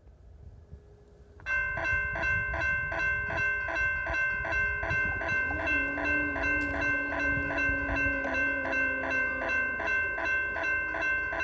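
Railroad crossing electronic bells (e-bells) sounding. One starts about a second and a half in with even dings at about three a second over a steady high-pitched tone. The crossing's defective e-bell adds a weird sound, which the uploader suspects comes from a broken speaker or a fried circuit board.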